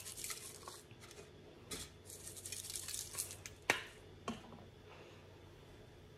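Seasoning shaker shaken over a foil-lined sheet pan: faint crisp ticks of dry herb rub scattering, then a sharp click a little over halfway through as the shaker is set down on the counter, and a second smaller tap soon after.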